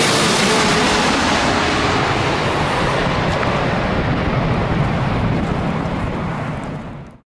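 Jet aircraft engine noise: a loud, even rushing rumble that gradually loses its high end, then cuts off abruptly near the end.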